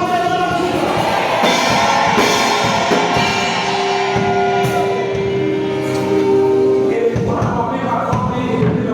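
Gospel singing with instrumental accompaniment, in a large hall. About a third of the way in, one note is held for some three seconds.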